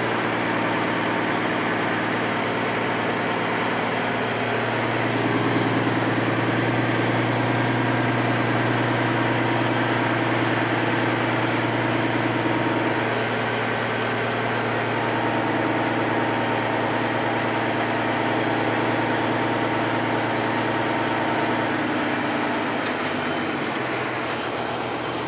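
Engine of a large vehicle running steadily as it creeps along in first gear, heard from inside the cab, with its note shifting a few times.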